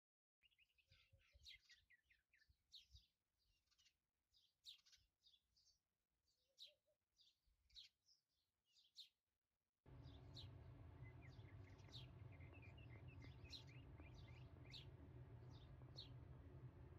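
Faint chirping of small birds, quick high chirps in loose clusters. About ten seconds in, a steady low hum starts underneath while the chirping goes on.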